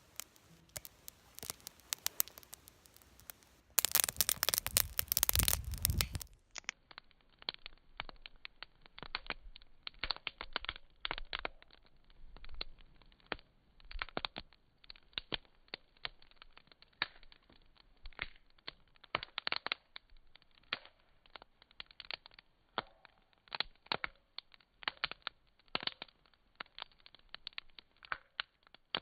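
Wood campfire crackling with scattered sharp pops. About four seconds in, a loud rushing noise lasts roughly two seconds.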